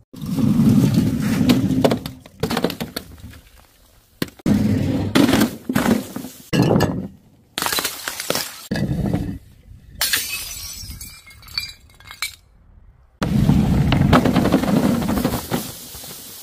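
Bottles and other powder-filled objects dropped from height smashing onto paving stones and a metal grate: a string of about eight separate crashes with sharp breaking and glass-like clinking, split by brief gaps.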